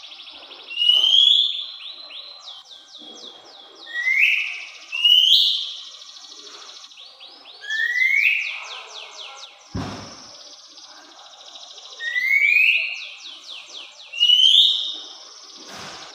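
Oriental magpie-robin (kacer) singing: loud upward-sliding whistles every couple of seconds, alternating with quick runs of repeated notes. There is a single low thump about ten seconds in.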